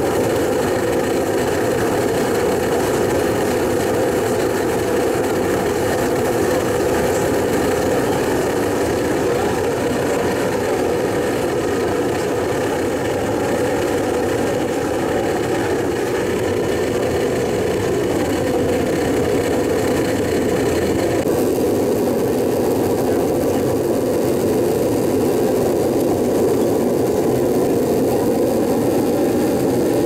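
Homemade furnace running after lighting, its salvaged washer-dryer blower forcing air into the fire with a steady, loud whir and roar. About two-thirds of the way through, the higher hiss in the sound drops away a little.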